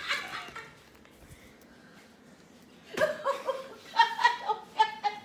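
A woman laughing in short, broken bursts, starting about three seconds in after a quiet stretch.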